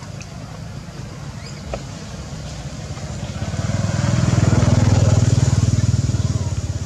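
A motor vehicle engine passing by. Its low hum grows louder from about three seconds in, is loudest around five seconds, then fades.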